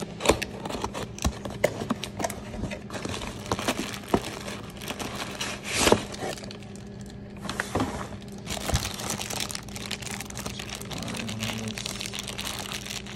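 Cardboard box being opened and plastic packaging crinkling and rustling as it is handled, with many irregular sharp clicks and a louder rustle about six seconds in. A faint steady low hum sits underneath.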